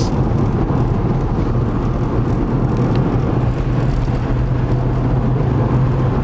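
Car driving along, heard from inside the cabin: the VR6 engine's steady drone with tyre and road noise.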